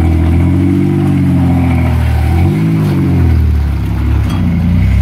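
Lifted Toyota 4Runner on oversized mud tires, its engine revving up and easing off twice as it drives through a mud pit under load.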